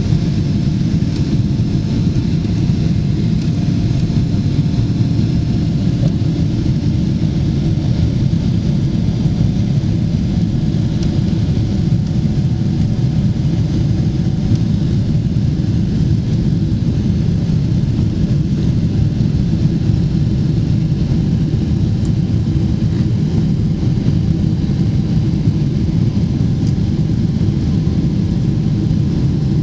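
Cabin noise inside a Boeing 777-300ER in the climb: a loud, steady low rumble from its GE90-115B engines and the airflow over the fuselage, with a faint high whine above it.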